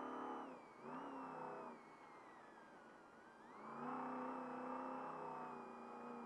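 Trophy Truck's race engine going off and on the throttle. It drops off just under a second in, picks up briefly, falls away for about two seconds with its whine sliding down, then rises back onto power and holds.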